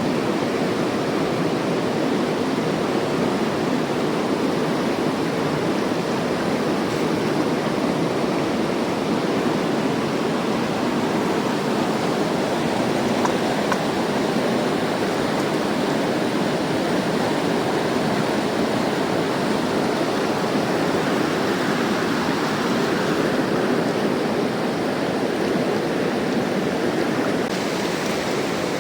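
Mountain river rushing steadily, a constant full roar of flowing water.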